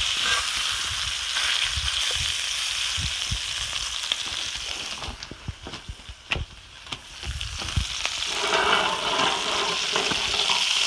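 Salmon fillets sizzling in hot coconut oil in a pan, a steady frying hiss that dies down for a couple of seconds midway and then comes back, with a few light knocks.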